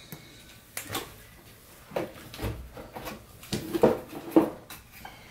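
Cardboard and foam packaging being handled, with about five separate light knocks and clatters.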